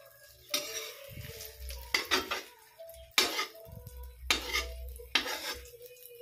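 Slotted metal spatula scraping and clanking against a steel wok while folding an egg omelette, in about five short scrapes roughly a second apart.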